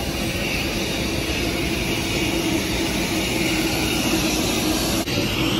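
Steady jet aircraft noise on an airport apron, a continuous roar with a low hum through it, briefly dipping about five seconds in.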